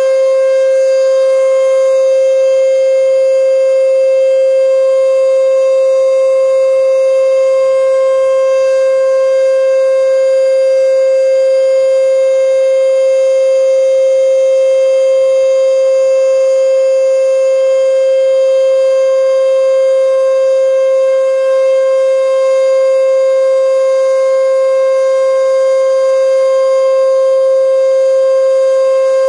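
E.D. Bullard 3H27 "Weltex" outdoor warning siren sounding the steady Alert signal: one loud, unchanging pitch with strong overtones.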